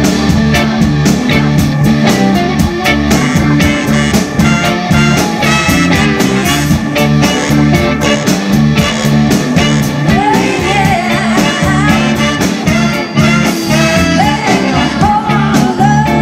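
Live rock band playing a song, with drum kit keeping a steady beat under electric bass, electric guitar and organ. A woman's singing voice comes in about ten seconds in.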